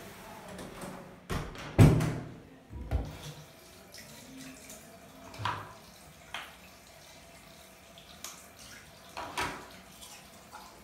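Scattered knocks and clicks of a toothbrush and toiletries being handled and set down at a bathroom sink; the loudest is a thump about two seconds in.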